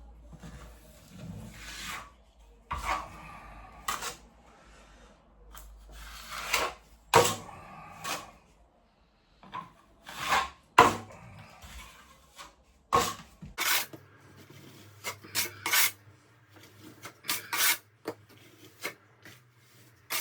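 Steel plastering trowel scraping and smoothing plaster onto a wall in irregular strokes, with a few sharper clacks of the tool.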